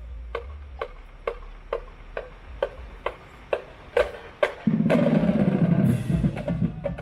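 A marching band's percussion keeps time with sharp, evenly spaced clicks, about two a second, ten in all. Then, about four and a half seconds in, the band comes in with a loud burst lasting just over a second, with a bright crash near its end before it fades.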